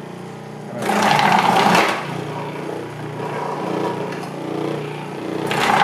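Cuisinart DFP-14BCN food processor running with a steady motor hum. Twice, about a second in and again near the end, there is a loud burst of about a second as a carrot is pushed down the feed tube and cut by the 6mm slicing disc.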